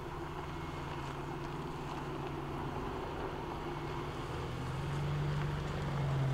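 1994 Geo Tracker's four-cylinder engine running as the 4x4 drives up a dirt trail, growing steadily louder as it approaches and passes close by.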